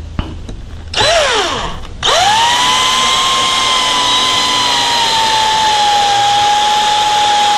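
Cordless drill driving 2.5-inch screws into a 2x4 frame. A brief spin-up about a second in, then from about two seconds a long steady motor whine whose pitch sags slightly as the screw pulls in under load.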